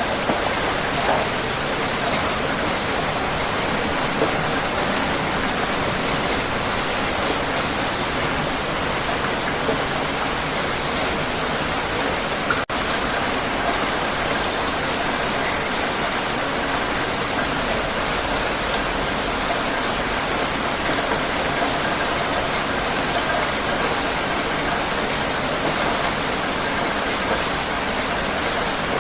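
Heavy rain falling steadily, a dense, even hiss. The level dips briefly about halfway through.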